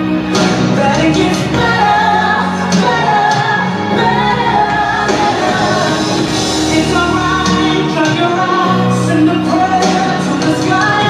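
A song playing, with singing over steady musical accompaniment and an echo like that of a large hall.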